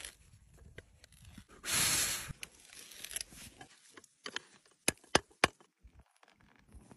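Hand auger boring into a wooden log, the bit scraping and crunching through the wood, with one loud scrape about two seconds in. A few sharp clicks follow around five seconds in.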